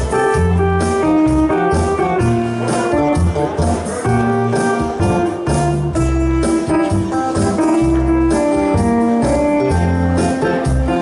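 Electronic arranger keyboard playing dance music live: a melody over repeating bass notes and a steady beat.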